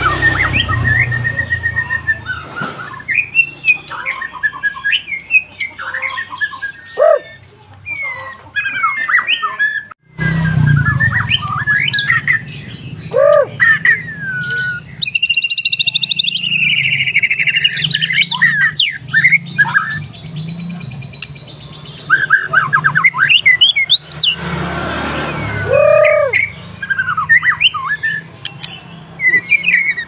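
White-rumped shama singing a long, varied song of clear whistled phrases, quick trills and rapid harsh chattering notes.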